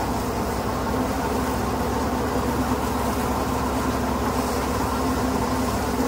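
Paddy thresher machine running steadily with a constant mechanical drone while harvested rice is fed into it.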